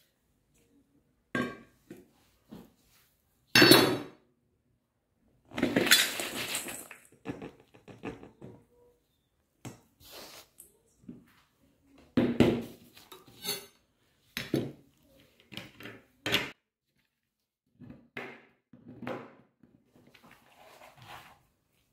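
A plastic cutting board and knife knocking and scraping against a stainless steel bowl as chopped dark chocolate shavings are tipped and tapped into it: a series of separate clatters, loudest about four seconds in and again about twelve seconds in, with a longer scrape around six seconds.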